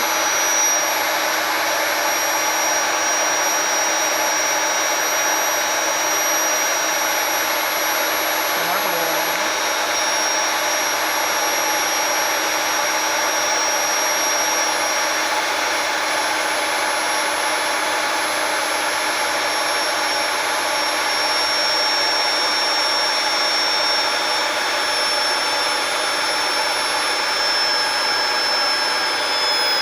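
Electric drilling machine running steadily at speed, its motor giving a continuous high whine over a rushing noise.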